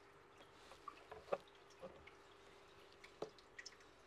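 Near silence with a few faint, scattered drips and small splashes of water as a fish catch bell is worked in a bucket of water, over a faint steady hum.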